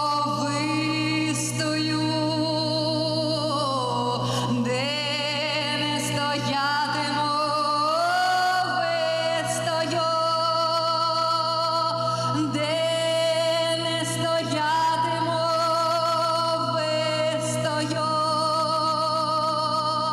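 Background music: a song with long held, wavering sung notes that slide between pitches over a steady low drone.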